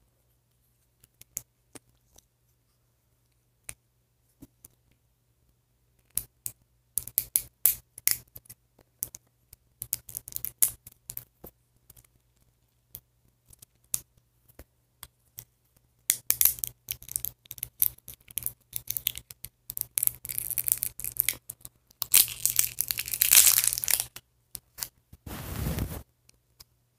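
Small plastic doll being handled and worked off its toy plastic salon chair: a few scattered clicks, then bursts of crackling and scraping, a louder rustle, and a short low thump near the end.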